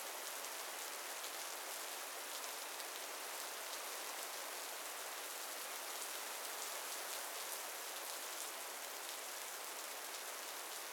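Steady rain falling on a pickup truck and gravel: an even hiss with faint ticks of single drops striking.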